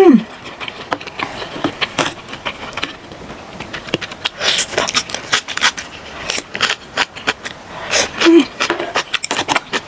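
Close-miked eating sounds: wet chewing, lip smacks and mouth clicks as mouthfuls of kimchi stew and noodles are eaten, with a short hummed "mmm" at the start and another brief hum near the end.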